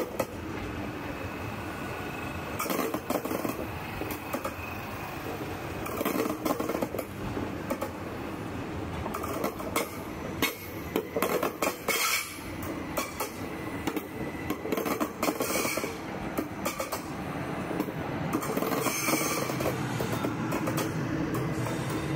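Stadler FLIRT electric multiple unit of the S-Bahn Hannover rolling past, its wheels clattering and clicking irregularly over rail joints and points under a steady running rumble. A thin high squeal rises at times.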